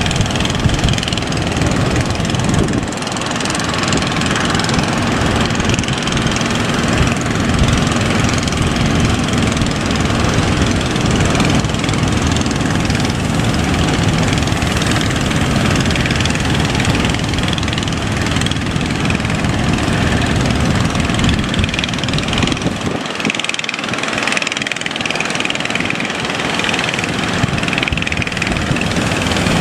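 Boat engine running loudly under a steady rushing noise. The deep rumble drops away about 23 seconds in while the higher rush carries on.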